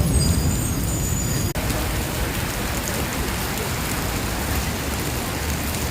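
Heavy rain pouring steadily, with a low rumble of thunder dying away in the first second and a half before the sound breaks off at a sudden cut into steady rain.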